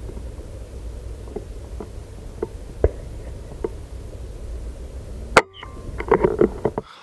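Steady low wind rumble with a few faint ticks, then about five seconds in a single sharp crack of a .22 BSA Superten air rifle firing, followed by a short clatter of small knocks.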